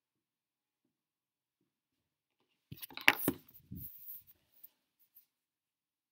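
Handling noise from a camera or phone being picked up and repositioned: a short cluster of knocks, rubs and clicks about three seconds in, with one sharp click the loudest, and a couple of faint clicks after.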